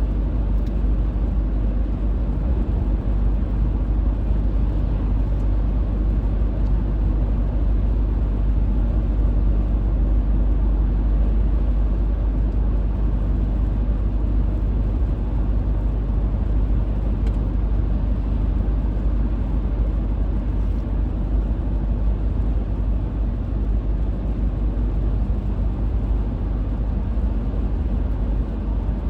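Car driving at highway speed: a steady rumble of tyre and engine noise that holds even throughout.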